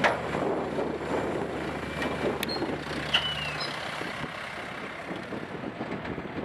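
A tipper truck's diesel engine running with a steady low hum, under a wash of site noise. A sharp bang comes right at the start, then scattered smaller knocks. The low hum stops about halfway through.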